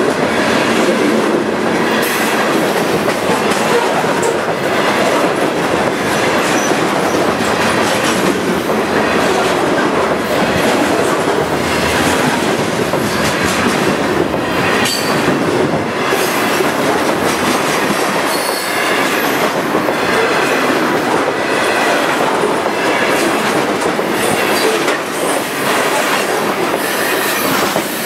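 Freight train's covered hopper and gondola cars rolling past at close range, steel wheels clicking over the rail joints in a repeating rhythm. The last car goes by near the end.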